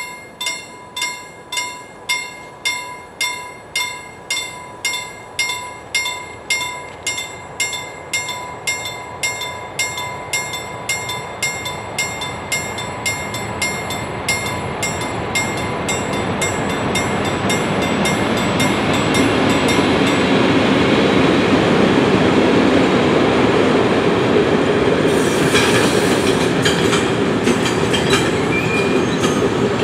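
Level-crossing warning bell ringing about twice a second, fading out as a freight train approaches. The train's rumble grows from about halfway and it runs across the crossing with wheel clatter, clanks and a brief wheel squeal near the end.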